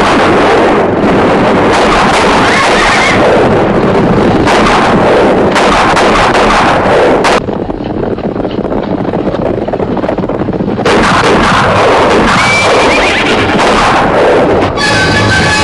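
A gunfight with horses: repeated gunshots over galloping horses and whinnying. A quieter stretch with fewer shots comes about halfway through before the shooting picks up again.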